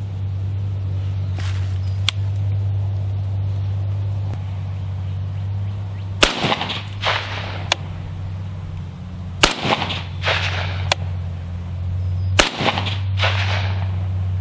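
Three semi-automatic rifle shots from a Beretta ARX-100 in 5.56 NATO, fired slowly about three seconds apart from a bench. Each shot is followed by an echo under a second later, over a steady low hum.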